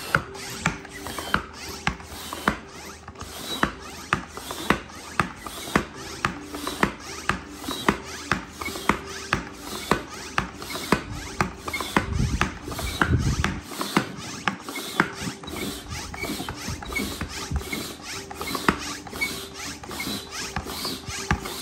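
Tobin Sports inflatable-kayak pump worked in steady strokes, a sharp click at about two a second, early in inflating a chamber while the pressure is still at zero PSI.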